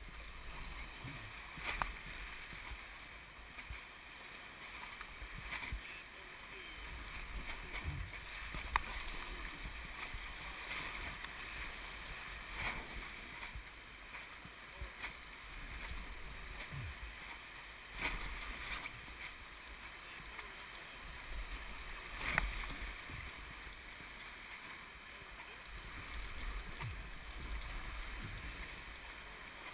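Whitewater rapids rushing steadily around an inflatable raft, with a low rumble of water against the camera and a few sharp knocks of paddles or hands on the raft.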